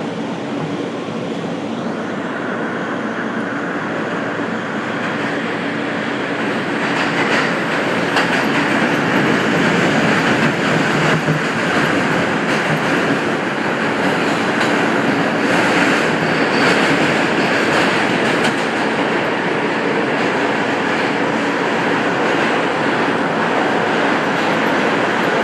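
A moving vehicle's steady running noise, growing louder about six seconds in and holding there.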